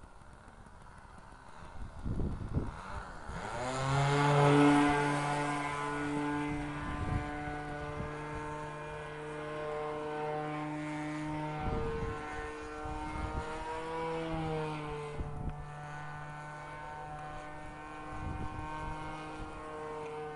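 The O.S. .40 nitro glow engine and propeller of a radio-controlled snow plane running at full throttle in flight. It sweeps in about four seconds in, loudest there, with its pitch dropping as it passes, then drones steadily overhead with a brief rise and fall in pitch about two-thirds through. A few low thumps come through now and then.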